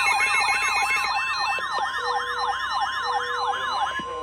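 Electronic emergency alert tones: a siren-like warble sweeping up and down about three times a second over a steady tone near 1 kHz, announcing a severe thunderstorm warning broadcast. The warble stops about four seconds in and the steady tone just after.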